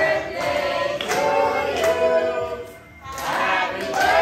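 Several voices singing together in sustained notes, with a brief break about three seconds in.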